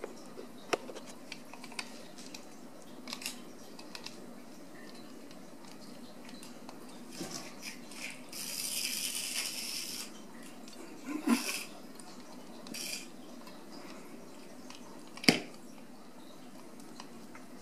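Ragdoll kittens playing on a tile floor: scattered light clicks and taps of paws, claws and a toy on the hard floor. There is a short stretch of hissy scuffling around nine seconds in and a single sharp knock near fifteen seconds.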